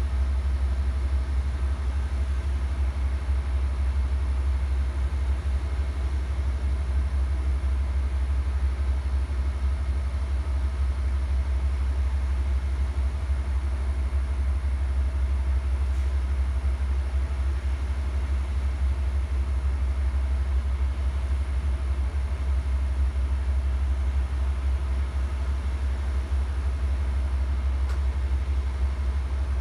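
Amtrak diesel locomotives idling at the head of a stationary passenger train: a steady low rumble.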